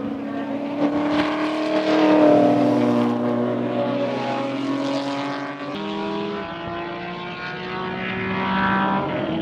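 Racing cars' engines at speed on a circuit. The engine note grows loudest about two seconds in and eases down in pitch, changes suddenly a little past halfway, then climbs in pitch near the end as a car accelerates.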